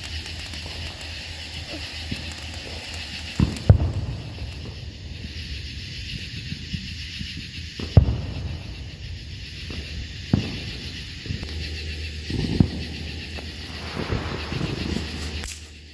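Small fireworks going off as sharp single pops several seconds apart, the loudest about four and eight seconds in, over a steady outdoor background hiss.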